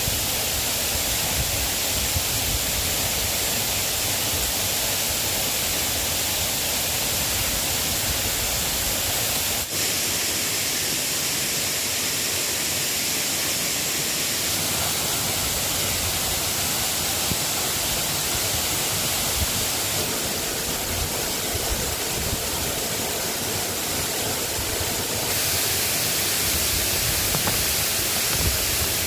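Steady rain falling: an even hiss of noise that shifts slightly in tone a few times.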